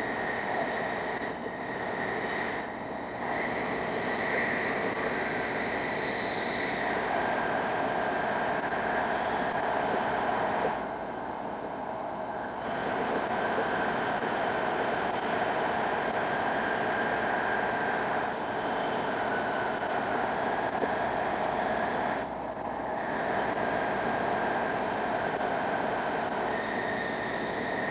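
E5 series Shinkansen running at speed through a tunnel, heard inside the passenger car: a steady rushing rumble of wheels and air with a few held tones over it, dipping briefly twice.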